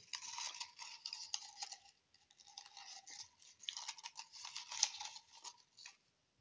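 Folded paper slips rustling and scraping against the inside of a small drinking glass as fingers stir through them to draw one. It comes as scratchy rummaging with small clicks, in two spells with a short lull about two seconds in.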